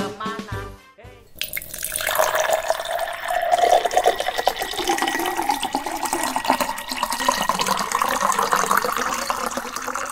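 A piece of music ends at the start; after a brief dip, a steady rushing, water-like noise, like a running tap, sets in about a second and a half in, with a faint tone running through it.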